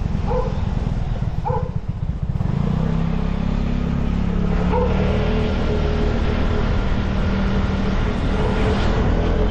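Vespa scooter's engine running on the road with steady road noise. The engine sound dips about two seconds in, then rises again and holds a steady drone, and a few short high beeps sound over it.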